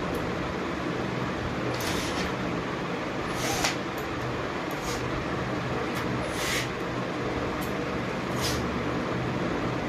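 Light clicks and clinks from a small hand tool working on a bicycle handlebar's brake and shifter fittings, several scattered short sounds over a steady low hum.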